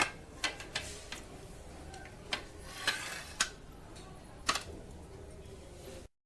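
Scattered light clicks and taps of small hard objects being handled and set down, about a dozen irregular knocks, cutting off abruptly about six seconds in.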